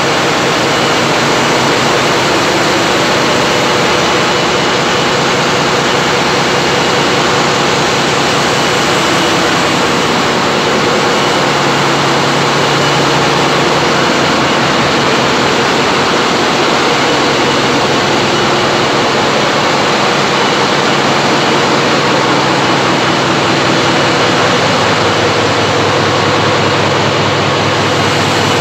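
Large engines running steadily in an engine room: a loud, unbroken machinery drone with a few steady tones held through it.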